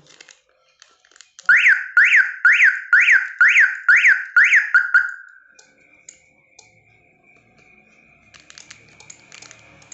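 Aftermarket car alarm siren sounding on a bench test: about eight quick up-and-down whoops, roughly two a second, starting about a second and a half in and stopping around five seconds, followed by a faint steady high tone.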